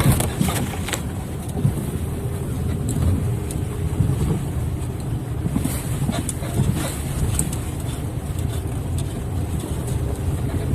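Lada Vesta sedan heard from inside the cabin while driving: a steady low road and engine rumble with short, irregular high-pitched squeaks from somewhere in the car, their cause unknown.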